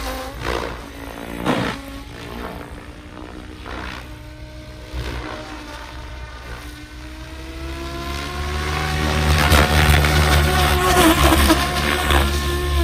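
SAB Goblin 700 electric RC helicopter flying aerobatics: a steady motor and rotor whine with short whooshes early on. Its pitch rises and it grows louder in the second half as the helicopter comes in close.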